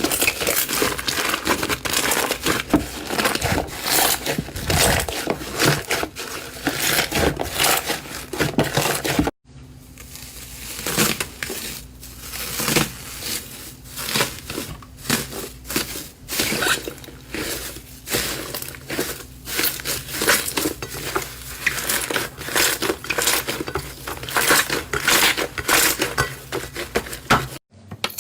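Slime being squeezed and kneaded by hand: a dense, continuous run of small clicks, pops and crackles, broken by a brief silence about nine seconds in and again near the end.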